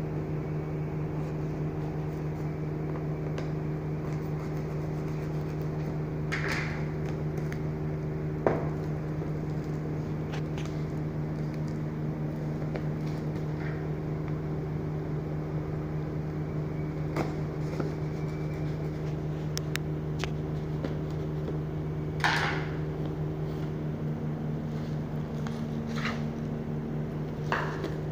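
A steady low mechanical hum throughout, with occasional scrapes and knocks as a cardboard product box is handled and opened. The loudest is a sharp knock about eight seconds in.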